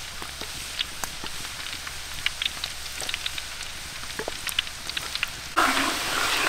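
Fish deep-frying in hot oil in a large iron wok: a steady sizzle full of small crackles and pops. Near the end it turns suddenly louder and fuller as a ladle stirs the bubbling oil.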